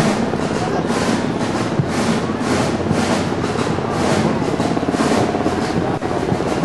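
A dense barrage of aerial fireworks shells bursting in rapid succession, many sharp reports running into one another in a continuous rumble, recorded on a camcorder's microphone.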